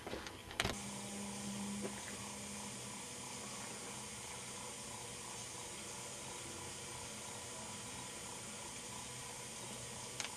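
Sharp handheld camera handling clicks and knocks in the first second, the loudest about half a second in. A faint steady hiss with a low hum follows, and one more click comes near the end.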